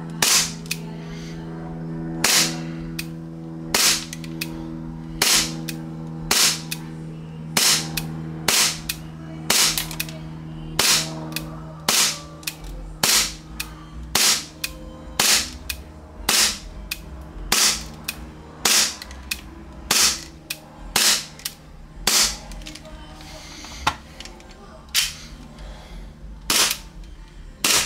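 KJ Works KP-19 gas blowback airsoft pistol firing single shots one after another at a steady pace, about one a second, emptying a gas magazine.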